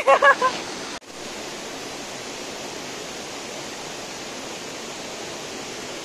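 Steady rush of a waterfall and its stream pouring over rocks, an even hiss that dips for an instant about a second in and then carries on unchanged.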